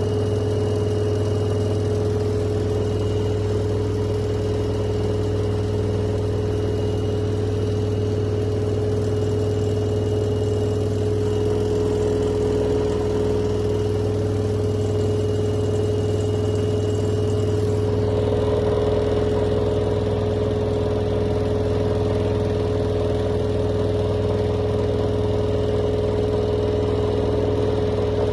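Washing machine running with a steady motor hum and one clear steady tone; the sound shifts slightly about two-thirds of the way through.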